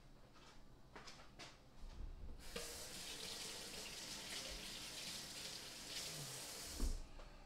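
Kitchen faucet running into a stainless steel sink while hands are washed under the stream. The water comes on about two and a half seconds in and stops near the end with a thump.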